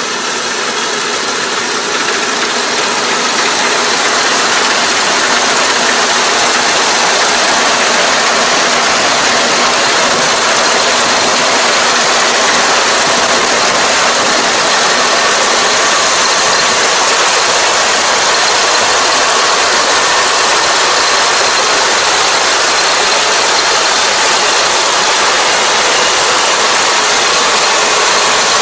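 Farm machine engine running steadily with a dense mechanical noise, building in level over the first few seconds and then holding.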